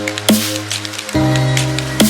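Electronic background music: held synth chords over a bass note that changes about a second in, with a sharp drum hit near the start and light ticking percussion.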